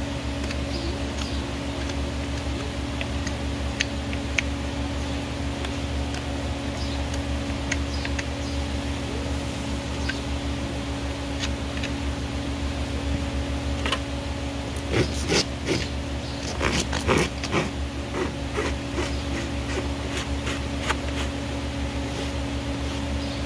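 Farrier working a horse's hoof: light clicks and handling sounds, then, from about two-thirds in, a run of short scraping strokes of tools against the hoof, over a steady low background hum.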